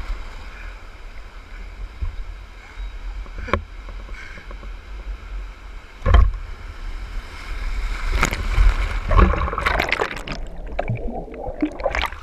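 Breaking surf and whitewater rushing around an inflatable raft, with a low rumble and sharp splashes slapping close to the microphone every couple of seconds, bunched more thickly near the end.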